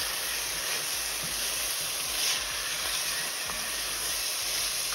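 Diced tomatoes and onion frying in olive oil in a pot: a steady sizzle, with a wooden spoon stirring them through.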